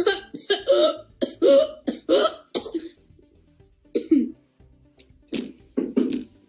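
A teenage boy coughing and clearing his throat: a quick run of short, harsh coughs, then three more single coughs spaced out over the next few seconds.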